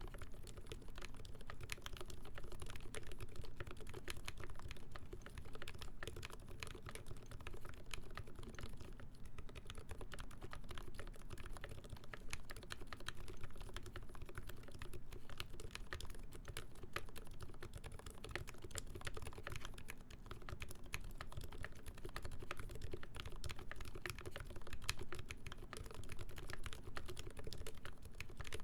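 Continuous fast typing on a custom mechanical keyboard, a TMO50v2 with a full brass plate, GMK ASCII keycaps and ZealPC Roselios switches lubed with Krytox 205g0, and lubed screw-in stabilizers. The keystrokes come as a dense, unbroken run of clicks with no pauses.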